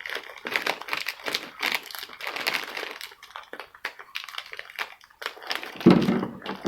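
Plastic wrapper of a Samyang instant noodle packet being torn open and handled, crinkling and crackling irregularly. About six seconds in there is a louder, deeper thump.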